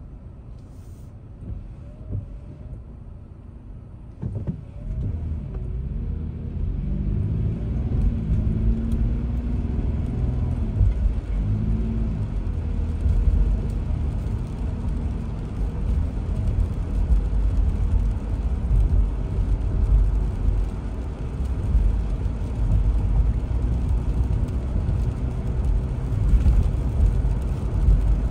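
Car engine and road noise heard from inside the cabin. For the first few seconds the car idles quietly. About four seconds in it pulls away, and the engine note rises as it accelerates. It then settles into a steady low rumble with tyre hiss on the wet road.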